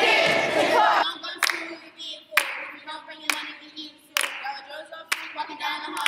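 A brief loud burst of many voices at first. Then a group of girls sing together in a circle, with sharp unison hand claps about once a second, five in all.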